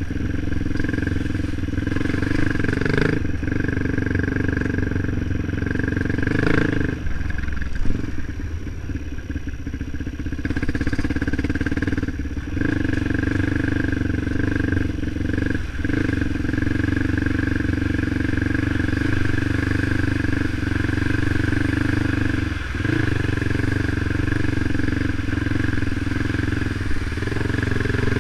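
Motorcycle engine running steadily while being ridden on a trail, with brief dips in engine sound several times and a stretch of lower, rougher running near the middle, as the throttle is eased off.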